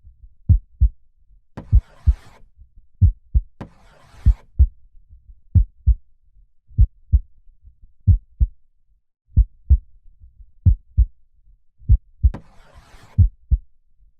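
Slow heartbeat, a steady lub-dub of paired low thumps a little over once a second. Soft breaths hiss over it twice in the first few seconds and once more near the end.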